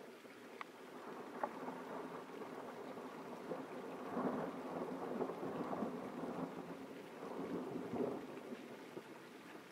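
Thunder rolling in a rainstorm, swelling to a rumble about four seconds in and again around eight seconds, over steady rain with a few sharp drip ticks near the start.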